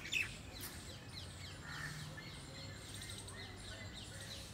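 Small birds chirping: a quick run of loud, falling chirps right at the start, then fainter chirping throughout over a low, steady hum.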